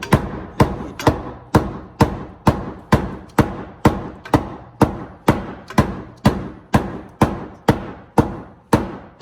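Mallet striking the rear fender lip of a Subaru WRX to roll it into the wheel arch. The blows are evenly spaced, about two a second, and each sharp knock rings briefly in the metal panel.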